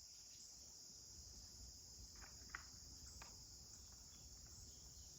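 Faint, steady high-pitched insect chorus, with a few faint ticks about halfway through.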